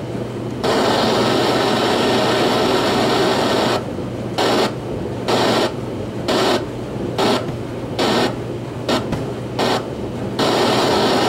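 FM radio static hissing from the iHome iH36 clock radio's speaker. No station comes in because there is no antenna. Near the middle the hiss cuts in and out in a string of short bursts as the tuning buttons are pressed, then runs steadily again.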